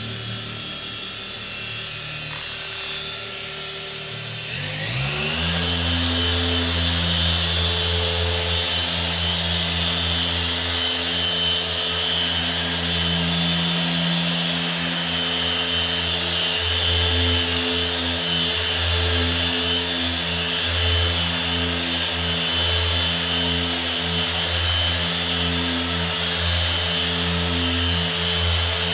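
Electric machine polisher spinning up about five seconds in, then running steadily with a motor hum and hiss while polishing the car's paint.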